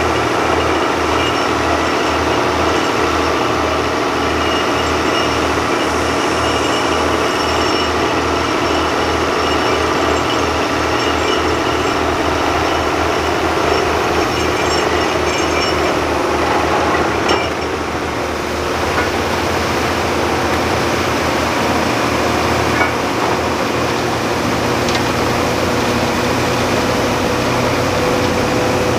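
Truck-mounted borewell drilling rig and its air compressor running steadily while drilling, with a fast low pulsing that quickens and then smooths into a steady hum just past the middle.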